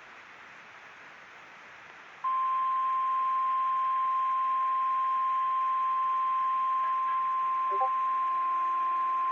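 Faint radio hiss of dead air, then about two seconds in the NOAA Weather Radio 1050 Hz alert tone comes on sharply and holds as one steady loud tone. It is the weekly test of the weather radio alarm.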